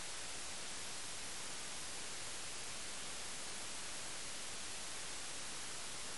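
Steady hiss of static with no other sound, spread evenly from low to high pitch: the demo footage has no soundtrack, only the recording's noise floor.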